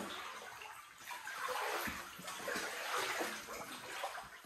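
Floodwater sloshing and swishing as someone wades through it indoors in waders, in uneven surges with each step.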